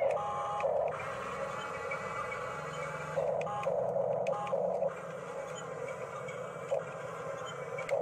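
Radio-controlled model bulldozer's electric drive motors and gearboxes whining as it pushes a heap of soil. The whine swells in several short bursts, most of them between about three and five seconds in.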